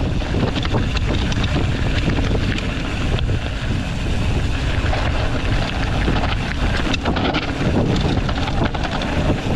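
Wind buffeting the microphone over the steady rumble of mountain-bike tyres on a rough trail, with frequent rattles and knocks from the bike, typical of a fast descent.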